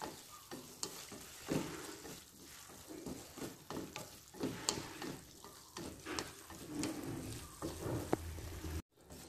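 Snail meat and coconut stir-frying in a pan: a utensil stirring and scraping with irregular light clicks over a sizzle as the sauce cooks down and dries.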